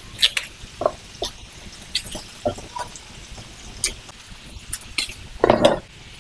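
Kitchen knife shaving and scraping the peel off a young kohlrabi in short, irregular strokes, with a louder, longer knock about five and a half seconds in.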